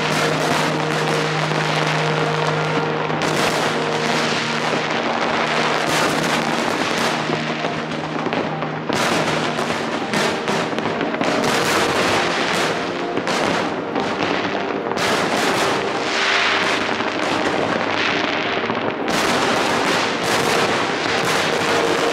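Large fireworks display: a continuous barrage of overlapping bangs and crackling bursts with no pauses, and some steady low tones held underneath.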